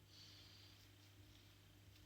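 Near silence: a faint steady low hum, with a brief faint hiss in the first second.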